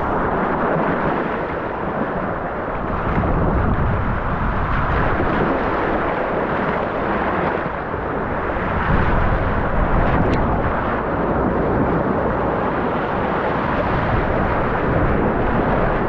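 Loud, steady rush and splash of fast-flowing water on a rafting water slide, with the water surging right over the microphone as the tube rides the rapids.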